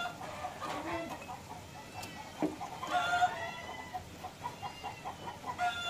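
Chickens clucking, with one longer call about three seconds in followed by a run of short clucks, over pork rinds frying in hot oil in a wok. A couple of sharp clicks come about two seconds in.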